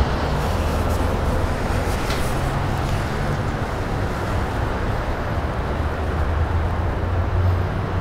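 Steady low rumbling background noise with a constant hum underneath, unchanging throughout.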